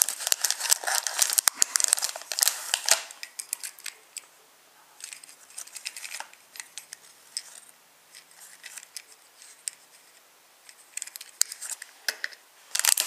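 Clear plastic packaging crinkling and crackling as it is handled, loud for the first few seconds. Then come scattered faint clicks and rustles, and loud crinkling again near the end.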